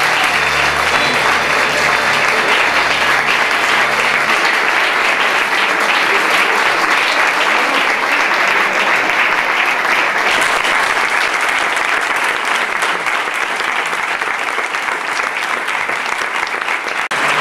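Audience applauding: a long, steady round of clapping from a roomful of people.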